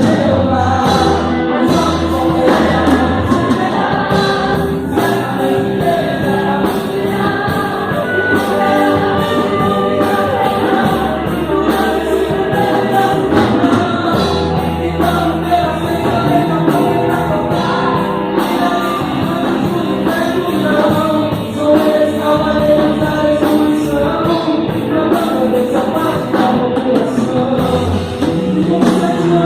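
Gospel band performing a song with singers, voices in a choir-like blend over the band's accompaniment.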